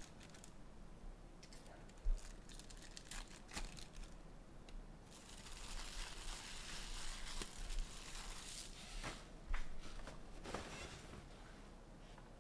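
Plastic wrapping on trading-card boxes and packs being torn and crinkled by hand, with scattered taps and clicks. A longer stretch of crinkling runs from about five to nine seconds in.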